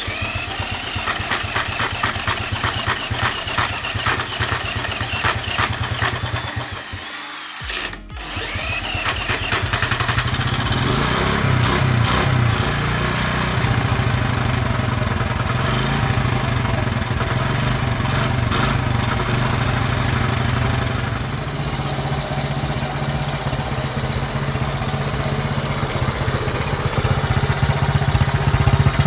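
Honda ATC 70 three-wheeler's small single-cylinder engine, freshly revived after sitting for 15 years, running and briefly cutting out about seven seconds in. It then catches again, revs up a few times and settles into a steady idle.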